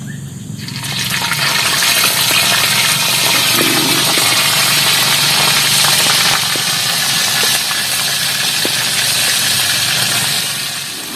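Small fish (ikan sepek) dropped into hot oil in a wok over a wood fire, sizzling loudly from about a second in with faint crackles, easing slightly near the end.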